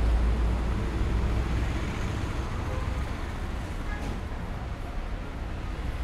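Busy city street traffic: engines of passing and waiting vehicles and auto-rickshaws, with a low engine rumble that is heaviest at first and eases after a second or two.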